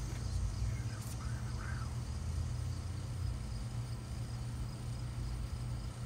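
Steady low outdoor background rumble, with a few short faint higher sounds and a brief click in the first two seconds.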